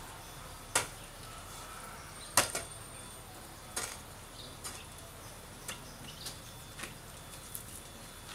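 A hoe chopping into dry, hard soil around cassava stems: a series of sharp strikes at uneven intervals, the loudest about two and a half seconds in, then lighter ones.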